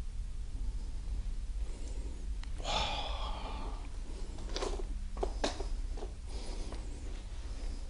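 A man's sharp, breathy gasp about three seconds in, then a few sharp clicks and knocks over a steady low hum.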